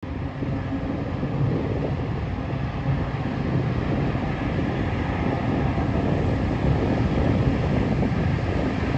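C-130's four turboprop engines running as it taxis toward the listener: a steady low drone that slowly grows louder.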